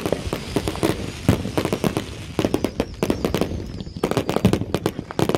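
Many consumer fireworks going off at once, a dense, rapid string of pops, bangs and crackles with no break.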